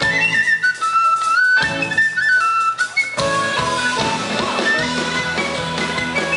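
Penny whistle playing the lead of an Irish tune, a quick stepping melody, over a live band of acoustic guitar and drums. About three seconds in, the accompaniment grows fuller and denser.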